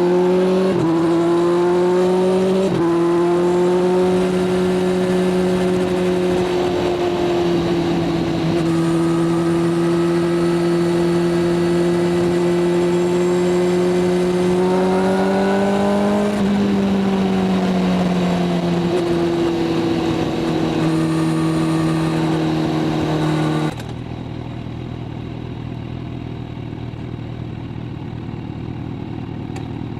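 Kawasaki inline-four motorcycle engine pulling hard with two quick upshifts in the first three seconds, then running steadily at cruising speed. The revs climb a little, then the engine note falls as the bike slows. Near the end the sound cuts abruptly to a quieter, lower steady hum.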